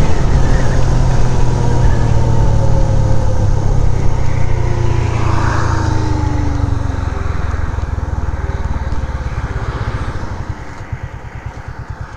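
Motorcycle engine running on the move over wind and road noise; its note slides down as the bike slows, and near the end the slow, even beat of the engine's firing comes through.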